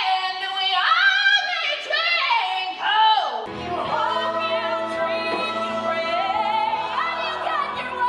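A woman belting high riffs alone, ending in a quick falling run about three seconds in. Then it cuts to a stage number: sung held notes over a band with a steady low bass line.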